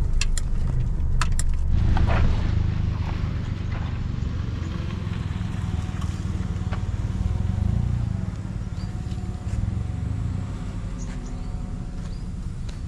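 A car moving slowly, heard as a steady low engine and tyre rumble that eases a little in the last few seconds. There are a few sharp clicks in the first second and a half.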